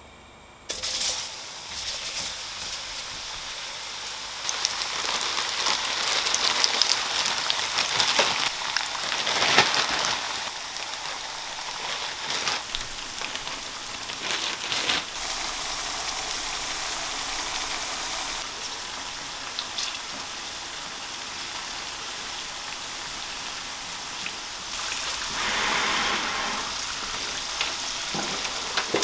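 Starch-coated sweet potato pieces sizzling as they deep-fry in hot salad oil: a steady crackling hiss that starts abruptly about a second in.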